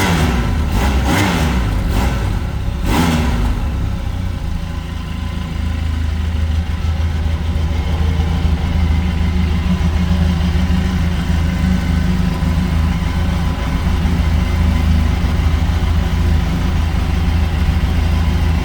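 Benelli TRK 502X's parallel-twin engine warming up after a cold start, blipped a few times in quick succession in the first three seconds, then settling to a steady idle.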